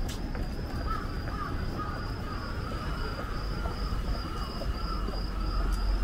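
City street ambience near a busy station: a low rumble of traffic that grows louder near the end, a high tone pulsing evenly all the way through, and some scattered warbling chirps.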